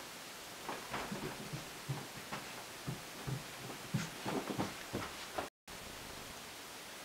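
Footsteps thudding irregularly on carpeted stairs as someone comes down them. They stop at a cut about five and a half seconds in, leaving a steady hiss.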